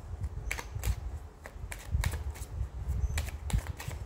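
Tarot cards being shuffled by hand: a quick, irregular run of card clicks and slaps, several a second, over low thumps of handling.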